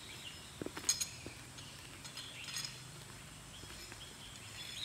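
Quiet forest canopy ambience with faint bird chirps, a few soft knocks and one sharp metallic clink about a second in, from the wooden planks and metal fittings of a rope-and-net suspension bridge being walked on.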